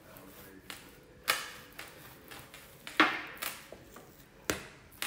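A few sharp taps and knocks, roughly a second and a half apart, with fainter ticks between: hands patting and handling ropes of bread dough on a kitchen benchtop.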